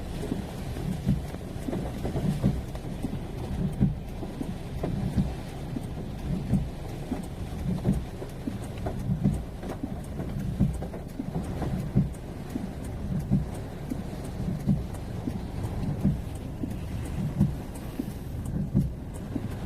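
Typhoon wind buffeting the microphone in irregular low gusts and rumbles.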